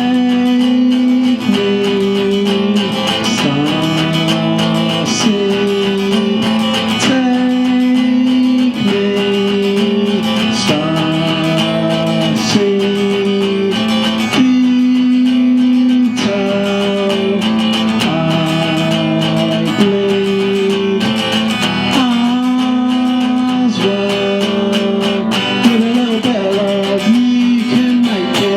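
Solo acoustic guitar playing a slow blues-style instrumental passage, strummed and picked chords ringing and changing every couple of seconds.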